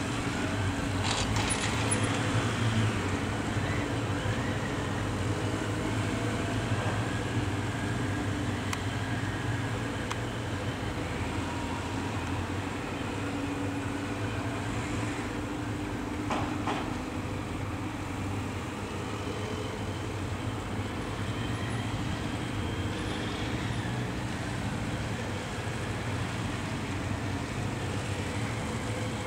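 Several motorcycle engines running at low speed together, their notes rising and falling gently with the throttle during slow tight maneuvering. Two brief sharp clicks, about a second in and about halfway through.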